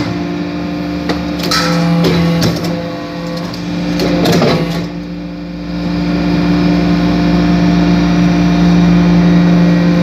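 Hydraulic metal-chip briquetting press running: a steady humming drone from its hydraulic power unit. Scattered clicks and rustles come in the first half as the ram works in the chips, then the drone runs on evenly and slightly louder.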